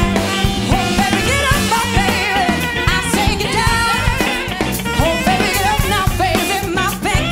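Live funk band playing an upbeat groove: drum kit, bass guitar and saxophone, with women's voices singing over it.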